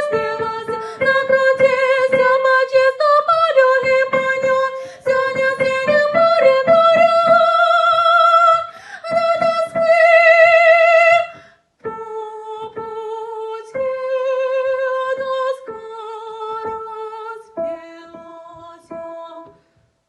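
A high female voice singing a slow song with vibrato on the held notes, over strummed guitar. About halfway through there is a short pause, after which the strumming thins out. The last note ends near the end.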